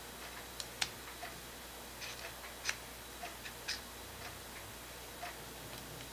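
Light, irregular clicks and ticks of a small RC universal-joint drive shaft knocking against the wheel bearing and axle housing as it is slid into the long side of a GCM ST2 scale axle.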